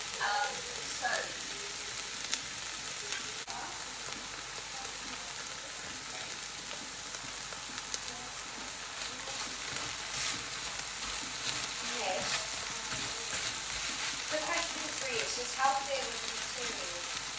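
Food frying in an oiled pan: a steady sizzle of hot oil.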